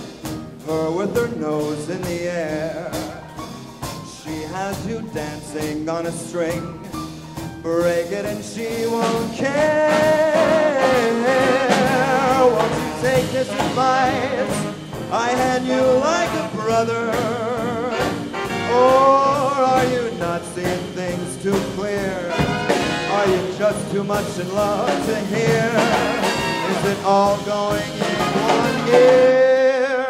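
Live big band playing a swing number, with saxophones and brass over piano, upright bass and drums. It closes on a loud held note near the end, then breaks off.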